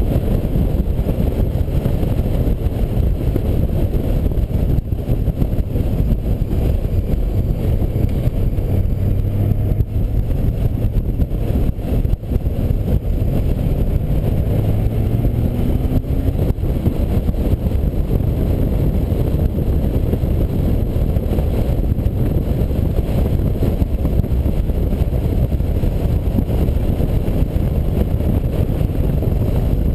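Touring motorcycle cruising at road speed: a steady rumble of wind on the microphone mixed with engine and tyre noise, the engine note rising briefly about halfway through.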